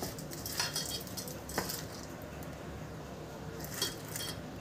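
Soaked rice being squeezed and rubbed by hand in a stainless steel bowl to crush the grains coarse: a few soft scrapes and clicks against the steel in the first couple of seconds, then mostly quiet with one more click near the end.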